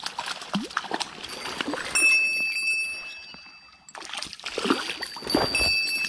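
A hooked white-spotted char splashing and thrashing at the water's surface while it is being fought on a lure, in two bouts with a lull between them. A thin, steady, high whine runs through the middle and again near the end.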